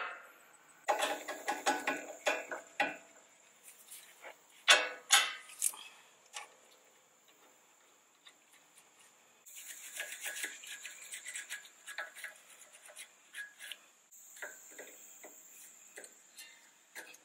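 Hand tools and loose metal parts clinking against a Toyota Tacoma's front suspension: a burst of metal clatter at the start, a couple of sharper clanks about five seconds in, then a run of quick light clicks lasting several seconds, with more light clicking near the end.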